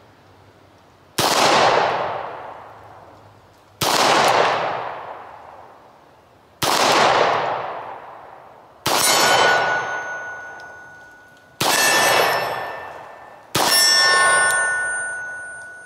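Six 9mm pistol shots from a Beretta 92FS, fired one every two to three seconds, each with a long echoing decay. The last three shots are each followed by the ringing of a struck steel target.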